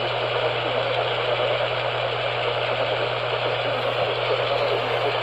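Steady hiss and static from an AM radio receiver, with a constant low hum underneath.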